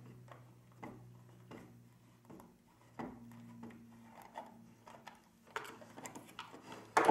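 Slip-joint pliers working a small nut loose on a bolt: light metal clicks roughly every half second or so, then scraping and handling of metal on wood, and a loud knock near the end as the pliers are set down on the wooden table.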